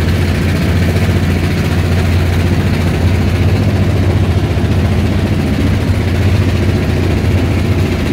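Motorboat engine running steadily under way, a constant low drone heard from on board the wooden river boat.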